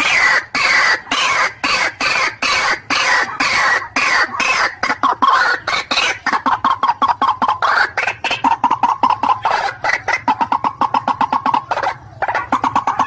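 White-breasted waterhen calling: a fast run of harsh repeated notes. The notes fall in pitch at first, then from about halfway settle into a quicker, even series of short notes.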